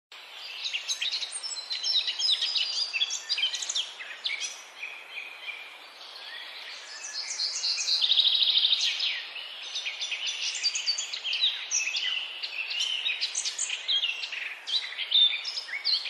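Dense chorus of many songbirds chirping and singing at once, with quick overlapping calls, over steady background noise; a fast trill stands out about halfway through.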